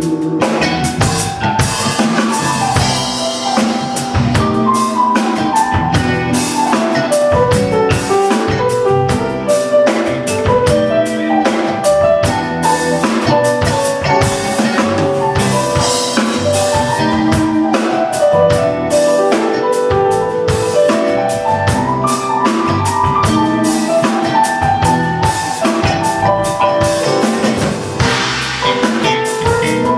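Band playing an instrumental break with no vocals: a drum kit keeps a steady beat with snare and bass drum under a melodic instrumental lead line.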